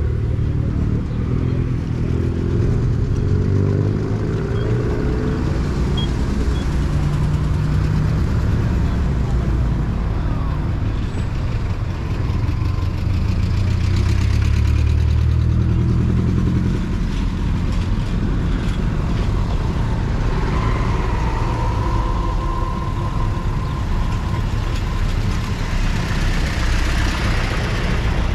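Motor vehicle engines running close by in slow road traffic, the low engine note rising and falling.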